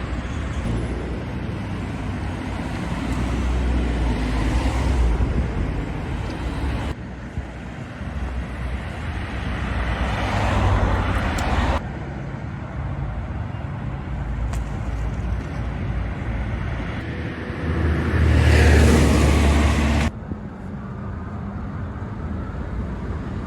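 Road traffic: cars passing on a highway, each swelling in loudness as it goes by. The sound cuts off sharply three times between segments.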